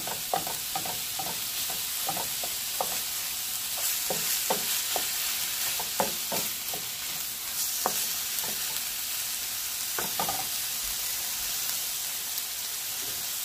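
Ground turkey and diced onions sizzling in olive oil in a skillet, with a wooden spoon knocking and scraping against the pan as the meat is broken up. The knocks are irregular and stop about ten seconds in, leaving the steady sizzle.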